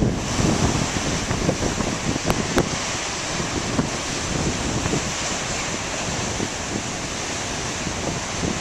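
Big ocean waves breaking in a steady wash of surf, with wind buffeting the microphone.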